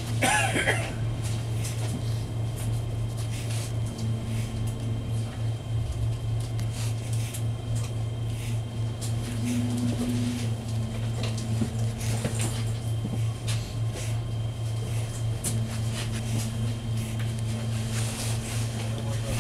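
Inside a Southeastern train carriage: a steady low hum and rumble with scattered light clicks and knocks. A fainter, higher hum comes and goes, and there is a brief high-pitched sound right at the start.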